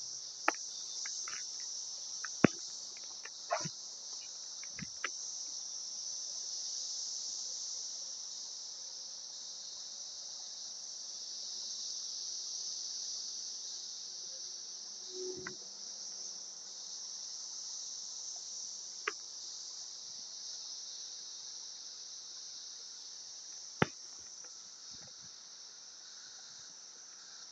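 Chorus of Brood X periodical cicadas: a steady high-pitched hiss that swells and eases slowly, with a few sharp clicks on top.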